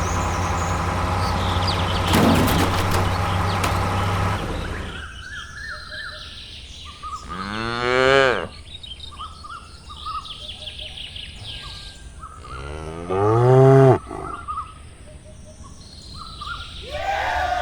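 Cows mooing: two long low calls, one about eight seconds in and another about thirteen seconds in, with birds chirping faintly between them. A steady droning sound fills the first five seconds, then stops.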